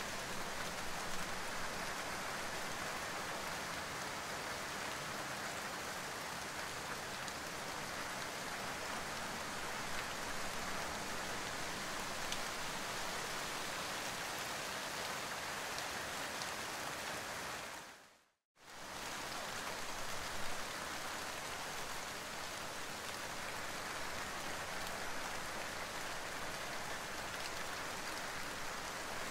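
Steady rain falling, an even hiss and patter. A little past halfway it fades out to silence for a moment, then fades back in.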